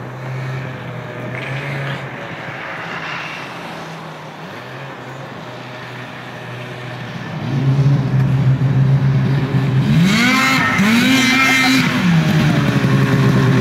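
Ski-Doo MXZ Rev snowmobile's two-stroke engine, running on its replacement motor, goes steadily at first and gets louder as the sled comes near. About ten seconds in it revs up in a rising whine, holds briefly, then drops back.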